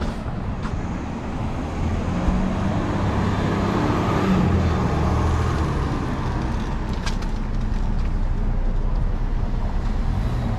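City street traffic: a vehicle passes, rising and fading over a few seconds, over a steady low rumble of traffic, with a few light clicks near the end.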